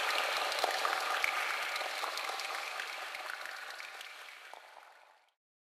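Closing noise effect of an electronic dance track: a crackling hiss full of small clicks, with no bass, fading steadily and cutting off to silence about five seconds in.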